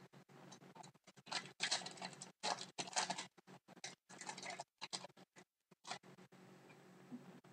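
Rustling and scratching of trading cards and their foil pack being handled, in a run of short bursts from about one second in to about six seconds in.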